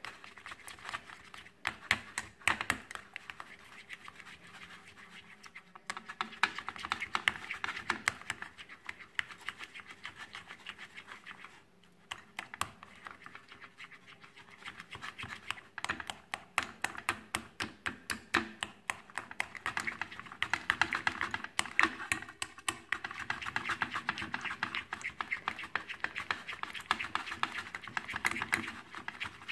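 Silicone spatula stirring egg yolk and mashed banana in a small glass bowl: rapid scraping and clicking against the glass, with a brief lull around the middle.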